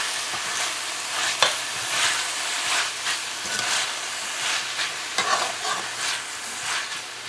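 Shredded cabbage and tomato being stirred and tossed with a metal spoon in a hot pot, frying with a sizzle, the spoon scraping the pot in repeated strokes. There is one sharp clink about a second and a half in.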